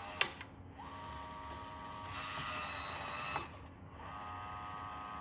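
Yale smart lock's motor driving the deadbolt during its automatic handing routine, as the lock learns which way the bolt throws: a click, a steady motor whir of about two and a half seconds ending in a click, then a second whir.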